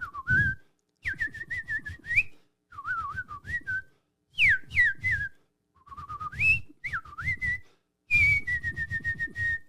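A person whistling bird-like phrases: six short runs of sliding, warbling notes with brief pauses between them, the last a long held note with a slight waver.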